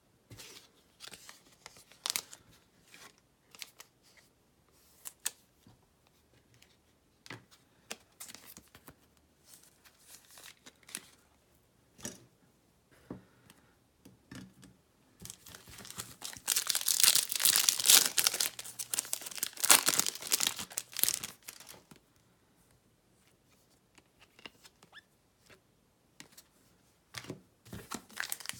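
Trading cards and hard plastic card holders being handled, with scattered light clicks and taps. About 16 seconds in come several seconds of loud crinkling and tearing from a sealed card pack's wrapper, and crinkling starts again near the end.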